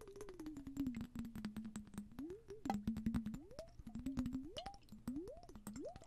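Water sloshing and dripping inside a lidded relish jar as it is tilted and shaken, with rapid drip-like clicks. Under them a pitched tone slides slowly down and holds, then from about two seconds in rises and falls again and again, faster toward the end.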